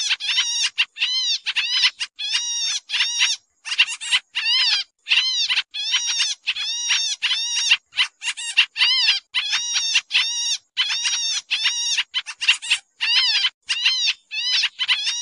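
Pied triller (kapasan kemiri) giving a rapid, harsh chattering series of short calls, about three a second, in runs broken by brief pauses. This is the noisy call used as a trapping lure for the species.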